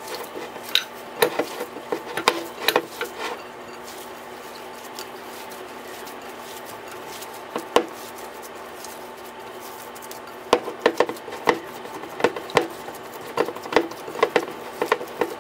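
Hands kneading and squeezing raw ground lamb mixed with chopped herbs in a glass bowl: scattered wet slaps and clicks against the glass. They are sparse at first and come thick and fast over the last five seconds.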